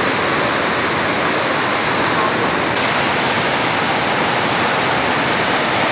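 Loud, steady rush of muddy floodwater churning through a canal below a bridge, the water let through opened sluice gates.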